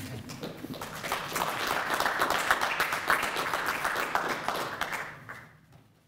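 Small audience applauding in an auditorium, building about a second in and fading out near the end.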